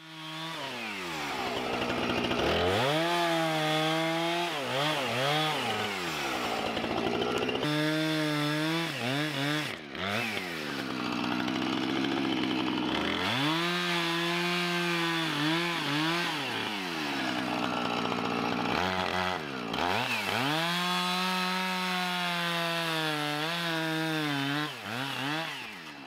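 Husqvarna 455 Rancher two-stroke chainsaw bucking a fallen pine into logs: it revs up, holds at full throttle through each cut, and drops back toward idle between cuts, about five times over. It settles back to idle near the end.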